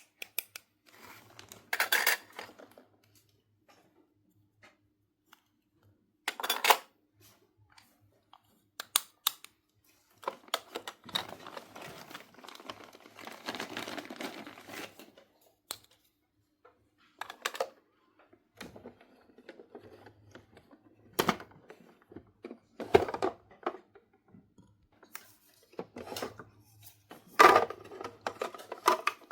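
Hands unboxing a plastic toy playset: packaging rustling and tearing, with scattered clicks and taps of small plastic pieces, and a longer stretch of rustling in the middle.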